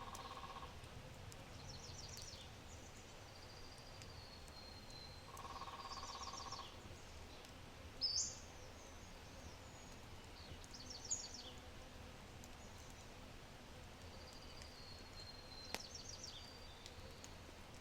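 Songbirds singing in the trees: a high, rapidly trilled phrase repeats every four or five seconds, with a lower buzzy trill near the start and about six seconds in, and a sharp short note about eight seconds in. Underneath, a faint low hiss from a low oak fire, with a couple of sharp crackling pops.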